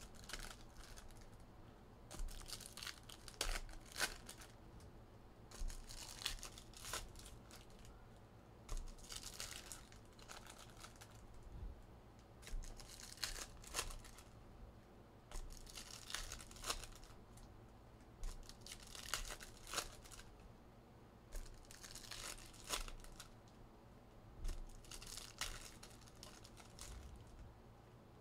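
Foil wrappers of 2023 Topps Cosmic Chrome baseball card packs being torn open and crinkled by hand, in repeated short crackling bursts every couple of seconds as pack after pack is opened.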